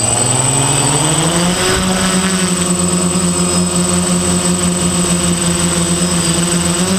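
DJI F450 quadcopter's four electric motors and propellers whirring as it climbs, the pitch rising over about the first second and a half and then holding steady. A thin, steady high whine runs alongside.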